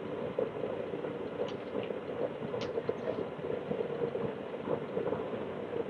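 DF64V 64 mm flat-burr coffee grinder running empty at its lowest RPM: a steady motor hum with a few faint ticks, as the adjustment ring is turned down to bring the burrs toward their zero point.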